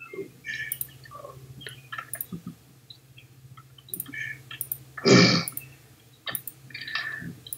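Scattered clicks and taps of a computer keyboard and mouse, with one louder, longer noise about five seconds in.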